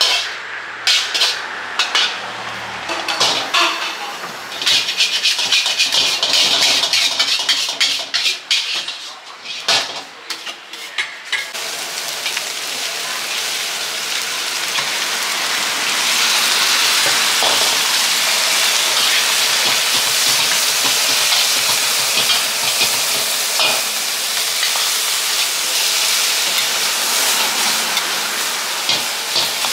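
Metal tongs and utensils clatter against trays and a wok in quick, irregular clicks. About eleven seconds in, a steady sizzle of rice noodles and chopped ingredients frying for pad Thai in a hot wok takes over, stirred and scraped with a metal spatula.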